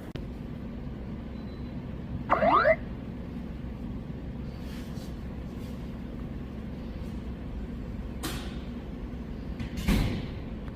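Steady low workshop hum, broken about two seconds in by a short, loud rising chirp and near the end by a low thump.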